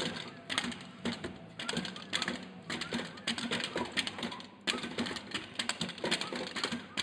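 Padded mallet knocking on the pop-up targets of a whack-a-mole style arcade game: rapid, irregular hits several times a second, briefly letting up about four and a half seconds in. A steady low hum runs underneath.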